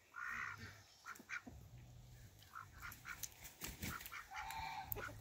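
Domestic ducks quacking: a short call right at the start and another near the end, with scattered light ticks in between.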